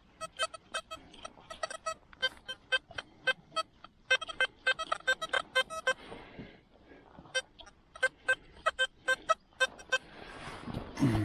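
XP Deus metal detector giving many short electronic beeps at much the same pitch, in quick irregular clusters as the coil is swept over targets. Near the end comes a rustling noise and a brief low sound.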